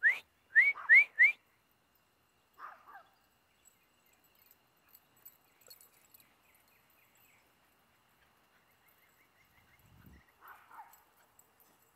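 A person whistles four short rising whistles in quick succession, calling a puppy. A couple of faint, short puppy yips follow later.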